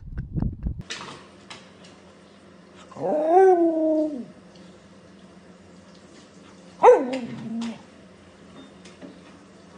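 A dog howling: one drawn-out call about three seconds in that rises and then falls over about a second, and a shorter call near seven seconds that starts high and drops.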